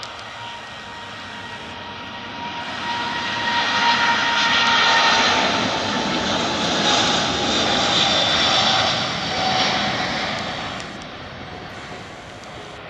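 Boeing 777 twin-jet airliner accelerating down the runway at takeoff power and passing close by. The jet engine noise swells, stays loud for several seconds, then fades, and a whining engine tone slowly drops in pitch as the aircraft goes past.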